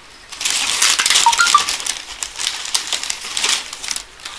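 Crinkling and rustling of food packaging with many light clicks, as pastries are taken out and handled.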